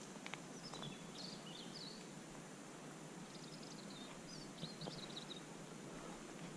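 A small songbird sings faintly in two short twittering phrases over a steady background hiss, with a few faint footsteps on the gravel track.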